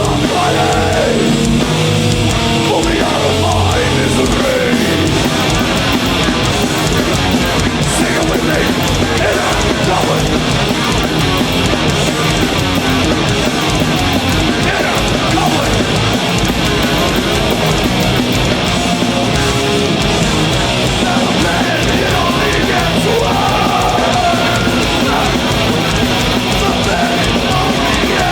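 Live heavy metal band playing at full volume: distorted electric guitars, bass and drums in a dense, steady wall of sound.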